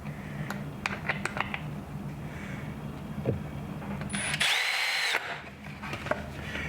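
Cordless drill driving a long screw into a wooden backer board, in one short burst about four and a half seconds in, after several clicks of the screw and tool being handled.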